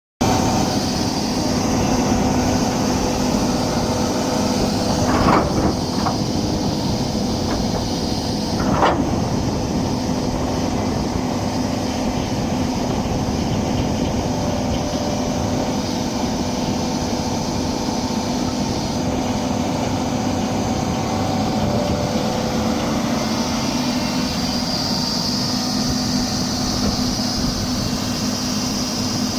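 Doosan 300LC-V hydraulic excavator running steadily under its diesel engine, with two sharp clanks about five and nine seconds in.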